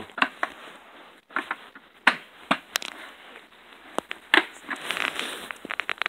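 Hand tools clicking, tapping and scraping on the plastic parts of an electronic bathroom scale while a load cell is being worked loose. There are irregular sharp clicks, with a longer scraping stretch about four to five seconds in.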